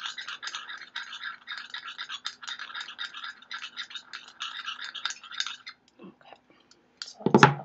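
Spoon stirring and scraping detox powder mixed with water into a thick sludge in a small cup: a fast run of scratchy strokes that stops about six seconds in. Near the end comes one loud thump.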